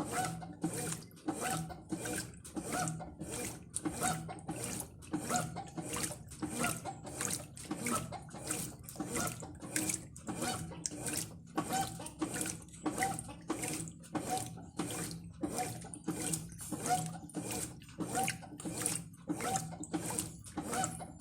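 Brastemp Ative 11 kg top-loading washing machine agitating on its Turbo cycle: the eight-blade agitator swishes the water and load back and forth in an even rhythm of about two strokes a second over a steady motor hum. The agitation is a little weak because of the eight-blade agitator, but it still moves the load well.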